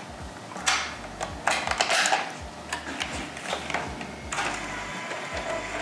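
A string of irregular plastic clicks and clunks from handling a Sony Handycam Vision Hi8 camcorder, its cassette compartment holding a freshly loaded Hi8 tape.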